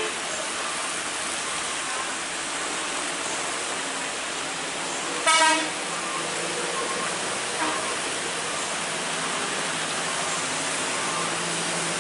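Heavy rain hissing steadily on the road, with a vehicle horn sounding once, loud, for about half a second about five seconds in.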